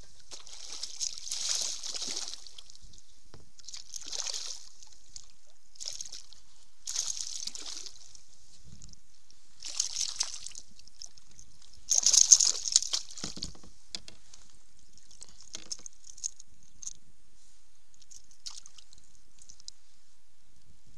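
A hooked peacock bass thrashing at the water's surface as it is brought to hand beside a kayak, throwing a series of short splashes, the loudest about twelve seconds in. After that only faint drips and small ticks.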